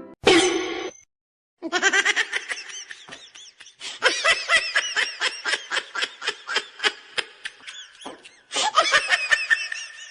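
A person laughing: a long run of rapid giggles, about four a second, then a second burst of laughter near the end.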